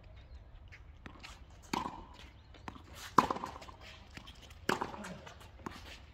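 Tennis rally on a hard court: three sharp pops of the ball off the rackets and the court surface, about a second and a half apart, with faint clicks of footwork between them.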